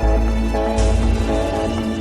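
Background music: sustained pitched notes over a deep bass, with a soft beat about once a second.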